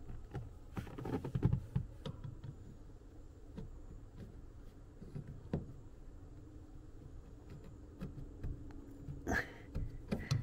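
Faint clicks and light scraping of a bearing assembly being slid by hand onto the metal exhaust pipe of the inflation system, going on easily, with a louder scuff near the end.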